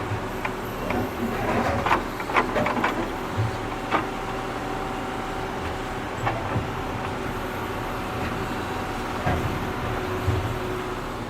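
Tractor engine running steadily while digging, with a cluster of knocks and clanks from the digging gear about two to three seconds in and a few single clanks later.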